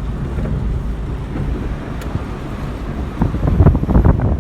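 Steady low rumble of a car driving, with wind buffeting the microphone. About three seconds in, a louder, choppy stretch of irregular knocks begins.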